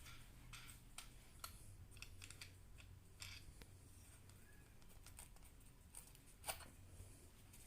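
Faint, scattered small clicks and taps of screws and nuts being taken off a wooden easel piece, with one louder knock near the end.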